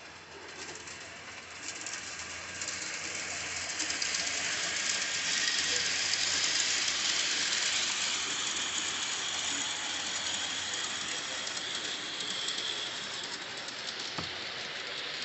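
G scale model train running on its track, its motor gears and wheels giving a fine rapid clatter that grows over the first few seconds, is loudest around the middle and slowly fades as it passes. A brief low thump near the end.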